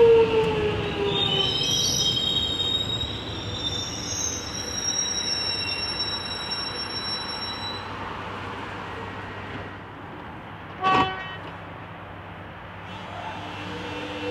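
An electric suburban train moving past, its pitched whine falling in the first second, then high-pitched wheel squeal for several seconds as the sound fades. About eleven seconds in comes one short horn toot.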